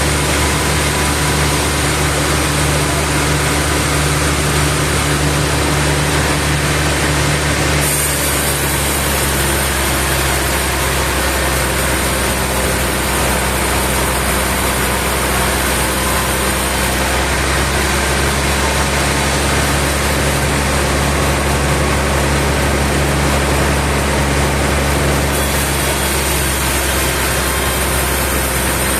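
Sawmill machinery running: a steady, loud engine or motor drone, its tone shifting about eight seconds in.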